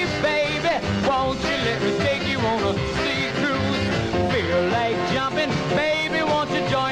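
Upbeat rock-and-roll style music with a steady beat and a sung or lead melody line.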